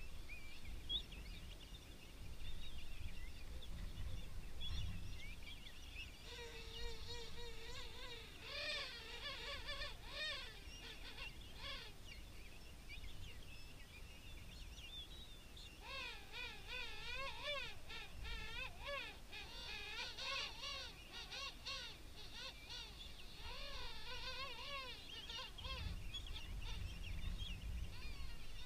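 King penguins calling across a colony: many overlapping warbling, trumpet-like calls that come in two spells of several seconds each, over a low rumble.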